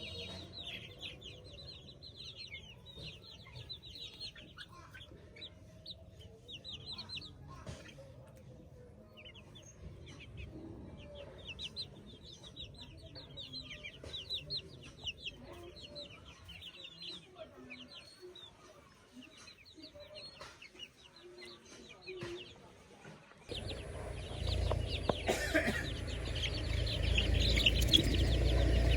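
Chickens calling, a dense, continuous run of many short high calls with some clucking. A little before the end the sound turns suddenly louder, with a low rumble under the calls.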